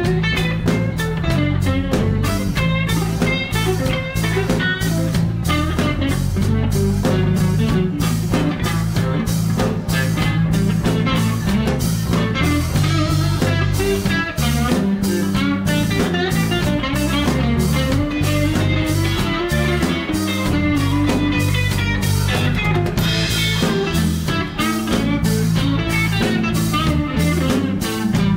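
A live band playing: electric guitar over bass and a drum kit, with a steady beat.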